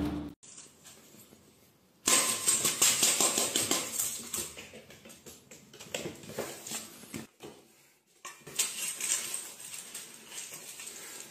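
Irregular clinks and rattles from a stainless-steel bowl of dry cat food as a ginger cat paws at it and eats, beginning about two seconds in.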